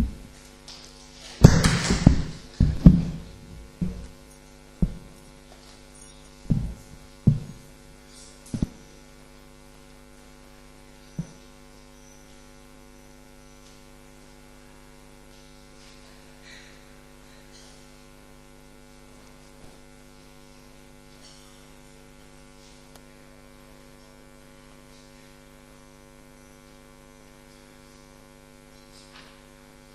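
Steady electrical mains hum from the sound system, with a string of sharp knocks and thumps in the first several seconds, loudest about a second and a half to three seconds in, fading out by about ten seconds.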